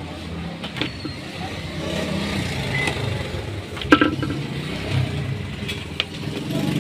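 A few sharp clicks and knocks, the loudest with a short ring about four seconds in, over a steady low background rumble.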